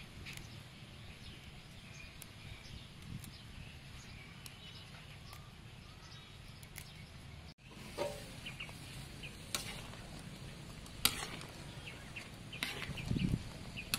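Faint outdoor background with a few small bird chirps. Then a wok of water boils hard with a hissing bubble, while a metal ladle stirs it and clicks sharply against the wok a few times.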